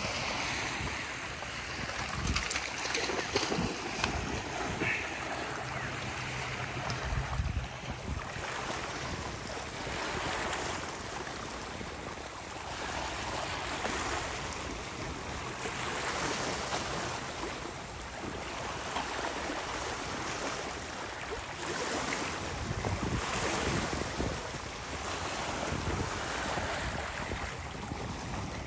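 Small sea waves washing onto a pebble shore, surging every couple of seconds, with wind buffeting the microphone.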